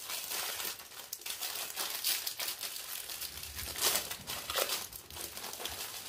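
Clear plastic packaging crinkling and crackling unevenly as it is handled and pulled open by hand, a little louder about two thirds of the way through.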